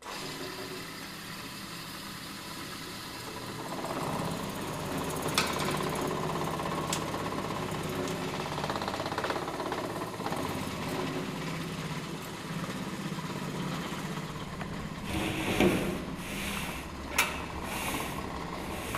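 Electric grinding mill switched on and running with a steady motor hum as powder is fed into its funnel. It grows louder about four seconds in, with a few sharp clicks and a short burst of rattling near the end.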